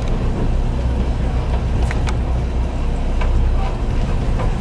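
Tour boat's engine running with a steady low rumble, with a few faint clicks on top.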